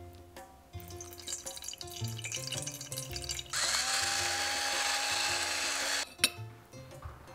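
Electric pepper grinder grinding black peppercorns: a steady motor whir with a gritty crackle, starting about three and a half seconds in and stopping after about two and a half seconds, followed by a sharp click. Soft background music plays under it.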